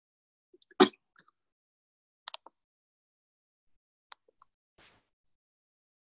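A few short clicks and knocks with dead silence between them, the loudest a sharp knock about a second in and a quick double click about two seconds later.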